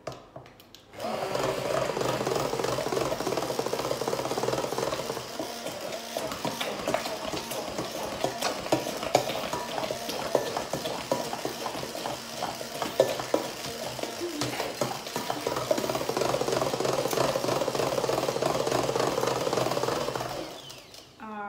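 Handheld immersion (stick) blender running in a glass bowl of cupcake batter, switched on about a second in and off shortly before the end. The motor runs steadily, with occasional sharp clicks along the way.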